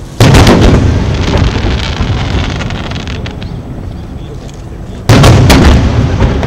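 Aerial firework shells bursting: two loud booms about five seconds apart, each followed by a long rumble that fades away.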